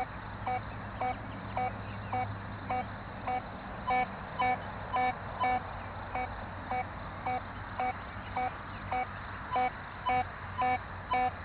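Metal detector giving short, even beeps of one pitch, about two a second, as its search coil is swept back and forth over a stone.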